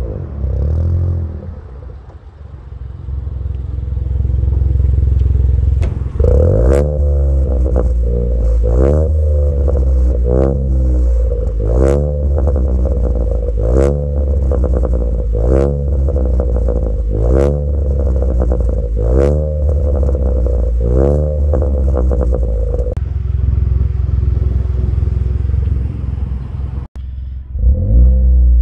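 Ford Fiesta Mk7 EcoBoost engine through a Cobra Sport cat-back exhaust, blipped over and over, each rev rising and falling about every two seconds with a sharp crack as it comes off the throttle. The revving stops about two-thirds of the way through and the engine settles to a steady run.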